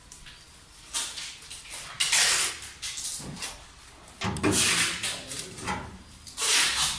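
Dent-puller stud welder zapping copper washer rings onto a bare steel car body panel: a handful of short, loud crackling weld bursts about a second or two apart.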